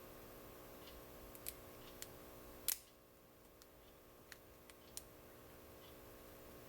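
Scattered small metallic clicks of a lock pick and tension wrench working the pins inside a brass padlock, with one louder click a little before the middle.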